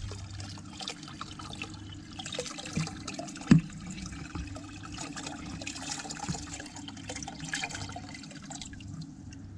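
Water pouring from a tipped bucket into a shallow creek, splashing and gurgling as small mullet are released with it. A single sharp knock about three and a half seconds in.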